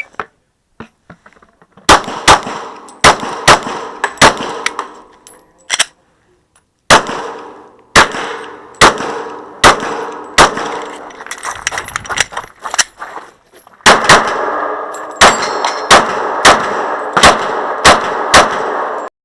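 Glock 22 .40 caliber pistol fired in quick strings of shots, each a sharp crack followed by ringing. There is a short pause about six seconds in and another near thirteen seconds, then a final fast string.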